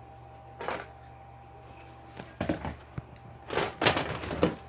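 Plastic toy blasters being handled, knocking and rustling in a few short bursts, with the longest cluster near the end.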